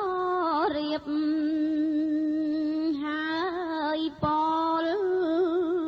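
A solo voice chanting a slow melody in long held notes with wavering ornaments, pausing briefly for breath about a second in and again after four seconds.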